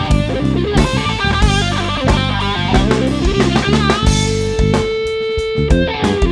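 Electric blues-rock band playing an instrumental break, with no singing. A lead electric guitar plays bending notes over drum kit and bass, and holds one long note for about two seconds near the end.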